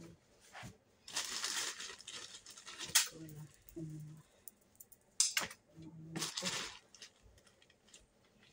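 Plastic bags and cloth rustling and crinkling in several bursts as they are rummaged through, with a sharp click about three seconds in. A few short, low murmured voice sounds fall between the bursts.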